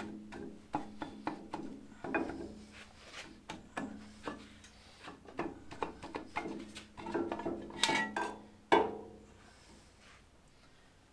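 Irregular metallic clinks and knocks as the half shaft and brake back plate of a Massey Ferguson 35 are wiggled and drawn out of the rear axle housing, with one sharp knock near nine seconds in.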